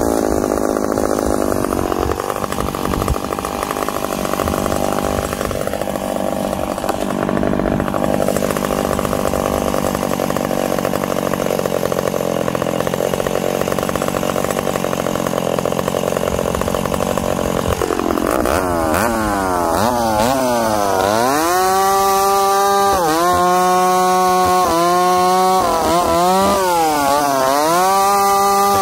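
Ported McCulloch Super Pro 70 two-stroke chainsaw, fitted with a new Oregon ignition module, running steadily at first. From about two-thirds of the way in it is cutting through a log, its engine pitch swinging up and down several times.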